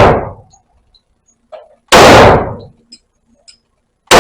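Hi-Point JXP 10mm pistol firing 180-grain full metal jacket rounds, with each shot ringing out in the indoor range. The tail of one shot dies away at the start, another shot comes about two seconds in, and a third starts right at the end, roughly two seconds apart.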